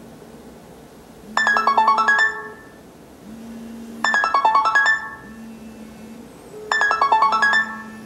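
An iPhone 5S ringing for an incoming call: a bright, marimba-like ringtone phrase plays three times, about every two and a half seconds. A steady low buzz from the phone's vibration motor comes on and off between the phrases.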